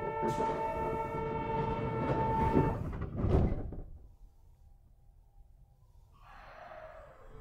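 Kyoto Tozai Line 50-series subway train at a stop. A steady electric whine with overtones lasts about three seconds, then a burst of door and air noise comes about three seconds in. After a short near-quiet pause, noise builds again near the end.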